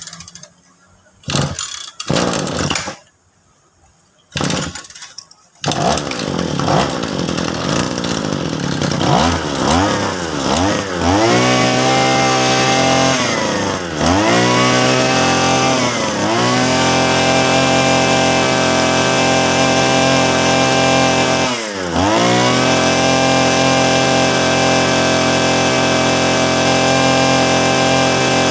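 Mitsubishi TB33 two-stroke brush-cutter engine, freshly rebuilt with a new cylinder block kit and crankshaft, being started: a few short bursts, then it catches about six seconds in and keeps running. Its revs drop and rise again several times, then it runs steadily at high speed.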